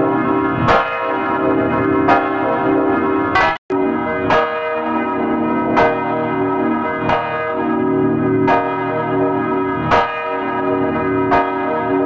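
A swinging church bell struck by its clapper about every second and a half, each stroke ringing on into the next. The sound cuts out abruptly for a moment about three and a half seconds in, then the strokes carry on at the same pace.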